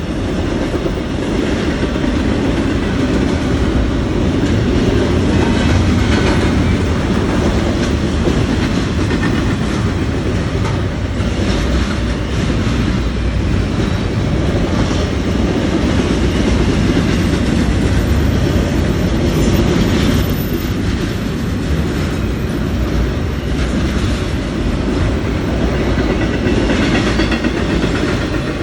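CPKC freight train cars rolling past, a steady loud rumble with wheels clacking over rail joints.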